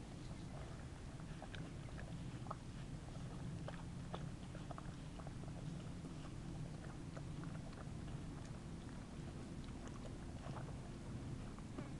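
Two small dogs chewing and licking food off a circuit board in the grass: irregular small clicks and crunches over a low steady rumble.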